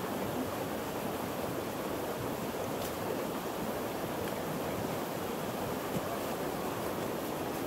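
Steady rush of flowing stream water, an even noise with no distinct events.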